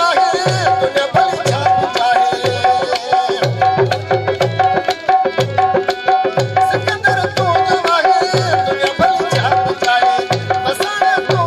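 Live Sindhi folk music: a dholak hand drum plays a quick, driving rhythm whose deep strokes slide down in pitch, under a harmonium melody over a steady drone.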